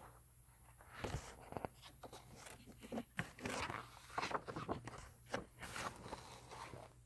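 A book's paper page being lifted and turned by hand: irregular rustling and crackling of paper.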